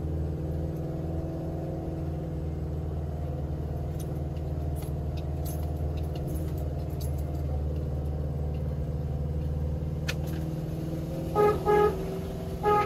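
Motorhome engine running steadily on the move, then the vehicle horn gives three short beeps near the end, two quick ones and then a third. The horn sounds a warning to oncoming traffic on a narrow, steep road.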